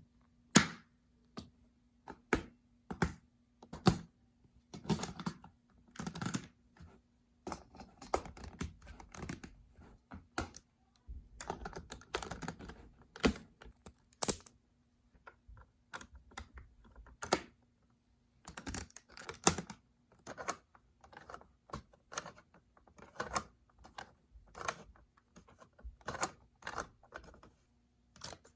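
Plastic Lego pieces clicking and clattering as they are handled and pressed together, in irregular single clicks and short flurries with pauses between.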